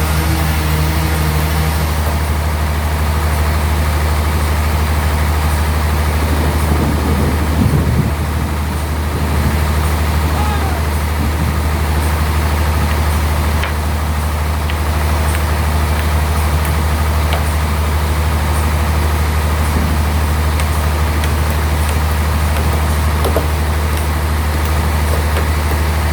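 Sawmill bandsaw machinery running with a steady, loud low hum, a slight swell about eight seconds in.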